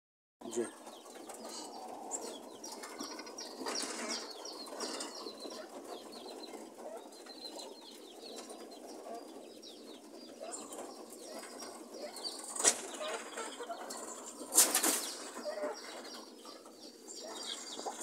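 Quails in wire cages rustling and flapping their wings, with faint high cheeping, and two sharp clicks about two seconds apart past the middle.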